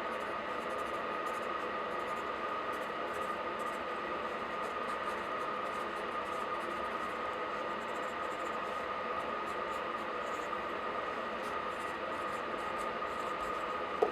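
Pen scratching on notepad paper in light, irregular strokes over a steady hiss with a faint high whine, and a single sharp click near the end.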